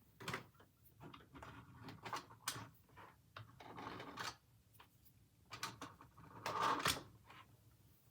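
Faint, irregular clicks, knocks and brief rustles of something being handled, the largest a short scraping rustle about six and a half seconds in. No alarm horn is sounding.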